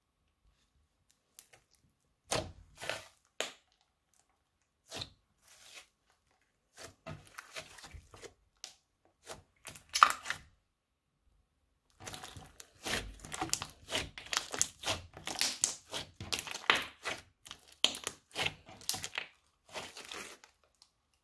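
Clear glitter slime being squeezed, pressed and stretched by hand, giving sticky crackling pops. The pops are scattered at first, with one loud crack about halfway through, then come in a dense crackling run through most of the second half.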